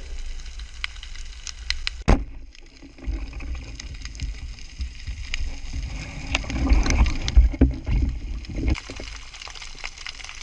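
Underwater sound as heard by a spearfisher's camera: a low rumble of moving water with scattered sharp clicks. There is one loud sharp knock about two seconds in, and louder low thuds and rumbling between about six and nine seconds.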